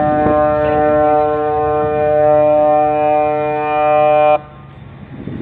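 Ship's horn sounding one long, steady blast of several tones at once, cutting off sharply about four seconds in.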